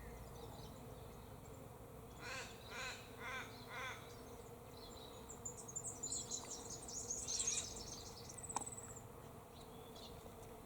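Birds calling: four repeated calls about half a second apart, then a burst of rapid high twittering and a short high whistle.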